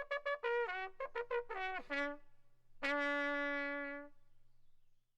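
A trumpet-like brass instrument plays a quick run of short notes that step down in pitch, slides down to a lower note, then holds one long note for over a second. A faint low hum runs underneath.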